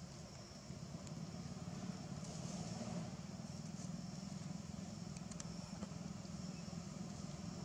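Steady low background rumble with faint high-pitched chirping that comes and goes, and a few light clicks about five seconds in.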